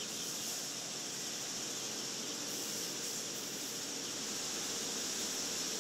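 Steady hiss and mechanical running noise from a hatchery's chick-handling line: conveyors and a robotic tray-stacking arm, with no distinct knocks or tones.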